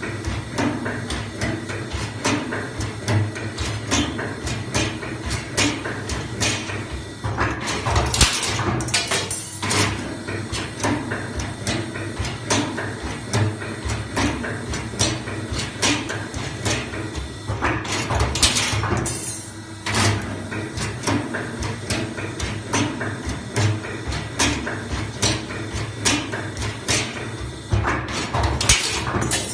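Automatic 2D CNC machine running through its cycle: a steady hum under a rapid, irregular clatter of clicks and knocks, with a longer burst of hissing noise about every ten seconds.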